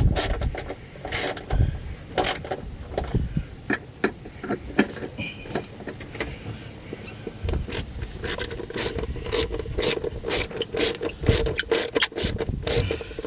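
Hand ratchet wrench clicking as a bolt is run down and tightened: scattered clicks at first, then a quicker run of clicks from about halfway.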